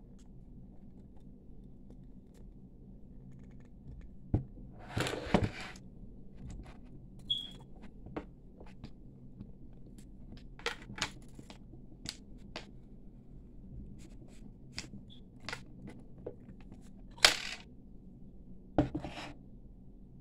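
Thin brass wire being bent by hand around a wooden bangle mandrel: scattered clicks and taps with a few short scrapes of wire against wood, the loudest about five seconds in and again around seventeen seconds.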